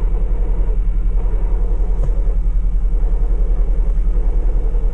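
Car engine idling with the clutch pedal released, a rubbing, friction-like noise running over the steady idle. The mechanic judges it the sound of a faulty clutch release bearing.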